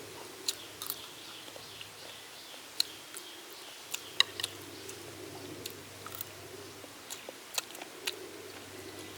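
Scattered sharp clicks and taps at irregular intervals, about a dozen, over a faint steady background.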